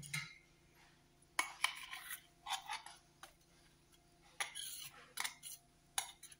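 Light, irregular clinks and scrapes of a mixer-grinder jar against a small ceramic bowl as thick ground green chutney is emptied out of the jar into the bowl. A knock at the very start as the bowl is set down on the counter.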